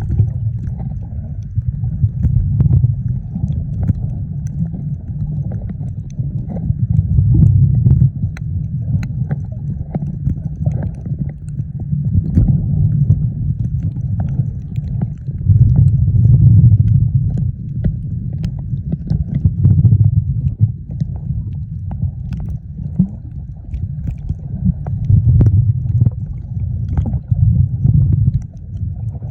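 Muffled underwater water noise: a low rumble of moving water that swells every few seconds, with scattered small clicks.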